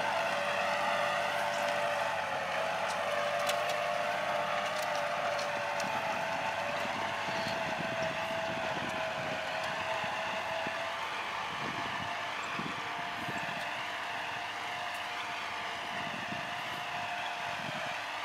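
Kubota L4708 47-horsepower tractor engine running steadily while pulling a disc plough through the field. Its drone slowly fades as the tractor moves away.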